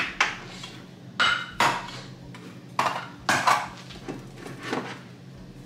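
Metal food cans being lifted off a kitchen cabinet shelf one after another: a string of separate clinks and knocks, about seven in a few seconds.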